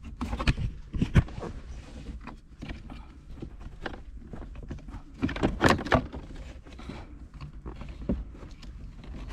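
Clicks and knocks of hands working the clips on a car's stock gear-shifter assembly, pushing them back so they pop up. A few sharp clicks come near the start and about a second in, then a denser burst of knocking about five to six seconds in.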